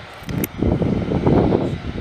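Wind buffeting the microphone in irregular gusts over a low, steady rumble, with a short click just before the gusts pick up.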